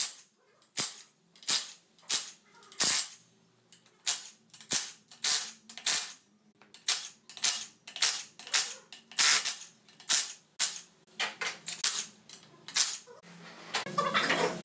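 A cordless power tool (impact driver or ratchet) runs the casing bolts of a Renault JF017 gearbox in short sharp bursts, about two a second, one bolt after another. Near the end, metal parts clatter as the case is handled.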